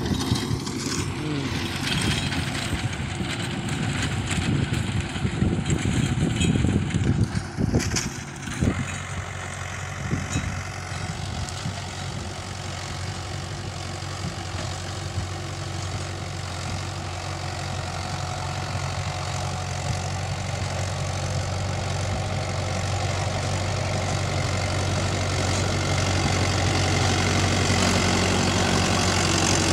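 Mahindra 415 DI SP Plus tractor's diesel engine running steadily under load while it pulls a rotavator through the field. The sound is rough and noisy for the first eight seconds or so, then settles into an even engine hum that grows louder near the end as the tractor comes close.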